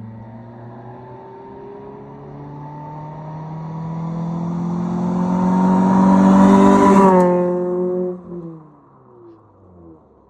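Toyota Celica with an aftermarket stainless-steel cat-back exhaust accelerating toward and past, its exhaust note rising in pitch and growing louder. About seven seconds in the pitch drops sharply as it goes by, and the sound fades away.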